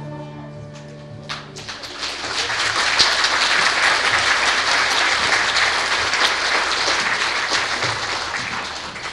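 The last held note of a children's choir song ends about a second and a half in, and an audience breaks into applause, which swells and then slowly dies down near the end.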